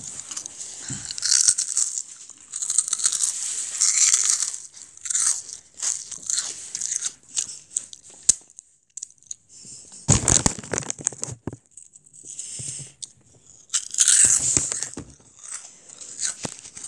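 Close-up crunching and chewing of Jagalchi, a crisp octopus-flavoured wheat snack, as a child bites and chews it in irregular bursts. The loudest crunches come about ten and fourteen seconds in.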